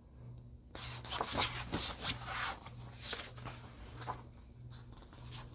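Paper pages of a large picture book being turned and handled: a stretch of rustling and crackling that starts just under a second in, with the loudest scrapes in the first half.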